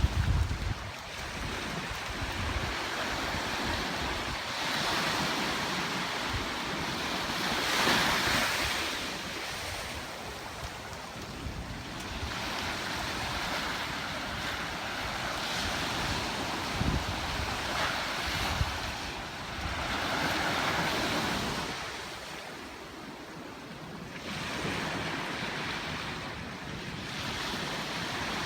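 Ocean surf washing onto a beach, the noise of breaking waves swelling and fading every few seconds, with wind buffeting the microphone.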